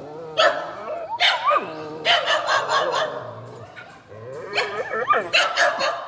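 Dog barking and yipping in several short bursts.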